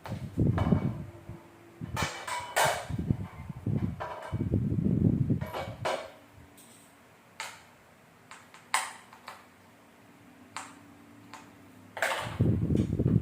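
Handling noises from unpacking: irregular spells of rustling and clattering, with scattered sharp clicks and knocks, over a faint steady hum.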